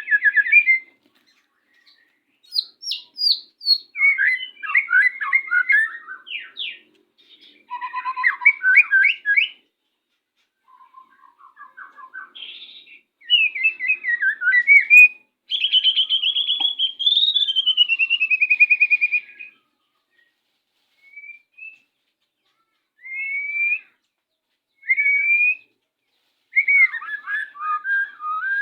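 White-rumped shama singing: a string of varied phrases of clear whistles, fast trills and chattering notes, separated by short pauses, with a longer falling whistled phrase about halfway through.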